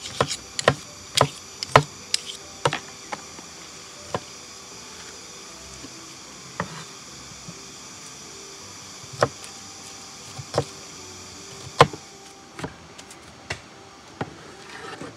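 A cleaver chopping red onions on a plastic cutting board: sharp knocks, a quick run of them in the first few seconds, then single chops every second or two.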